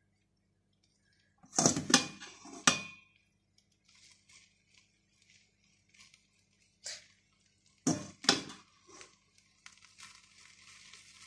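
Metal spoon knocking and clinking against a pan, with soft scraping, as cooked rice is spooned in: one cluster of sharp knocks about two seconds in, a single knock near seven seconds, and another cluster about eight seconds in.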